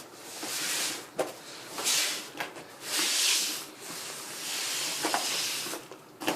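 A broom sweeping hailstones across a hard surface, in about four hissing strokes of half a second to a second each.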